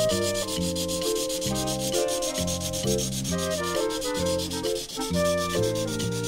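Continuous scratchy rubbing like crayon scribbling on paper, the coloring-in sound effect. Under it plays light background music with a bouncing bass line and a simple melody, changing notes about twice a second.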